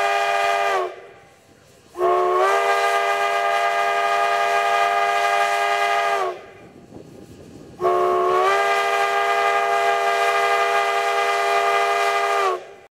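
Chime steam whistle of a Durango & Silverton K-36 narrow-gauge steam locomotive, No. 486, sounding three loud blasts. The first ends about a second in, then two long blasts of about four seconds each follow. Each blast sags slightly in pitch as it cuts off, and steam hisses faintly in the gap between the last two.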